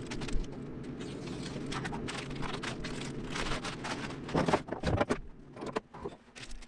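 Masking paper rustling and crinkling as it is pressed down and handled, over a steady low hum. A few sharper, louder crinkles and knocks come about four and a half to five seconds in.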